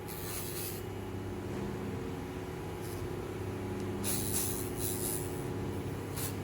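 Small motor of a battery electric nail clipper (rotary nail grinder) running with a steady hum. Several short bursts of scraping hiss come as the fingernail is pressed into the grinding slot and filed down, one near the start and a longer one about four seconds in.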